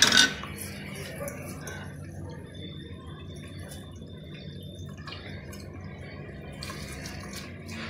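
A steel spoon stirring rice into boiling stock in an aluminium pressure cooker: a short, loud clatter and splash at the very start, then the liquid bubbling steadily over a low hum.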